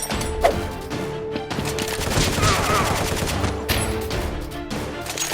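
Rapid bursts of gunfire, edited in as sound effects, over background music.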